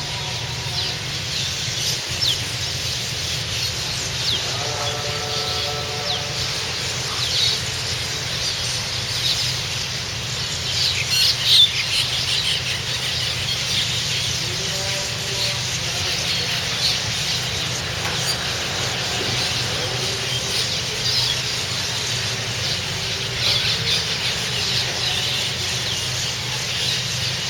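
A flock of small birds perched on a wire, chattering with many overlapping high, short calls that run on without a break. Underneath is a steady low hum.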